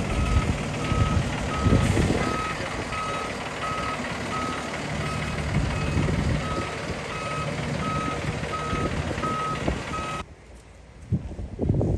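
Concrete mixer truck reversing: its backup alarm beeps at an even pace over the running diesel engine. Both cut off abruptly about ten seconds in, and wind buffets the microphone near the end.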